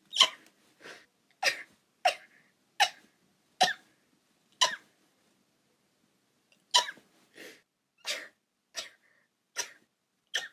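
A woman sneezing in a rapid run of short, sharp sneezes, about a dozen in all, with a pause of about two seconds midway.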